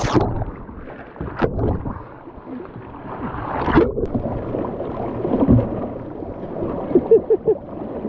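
Muffled underwater rushing and gurgling of whitewater, heard through an action camera on the bow of a swamped, capsized canoe, with a couple of sharp knocks and short bubbling blips near the end.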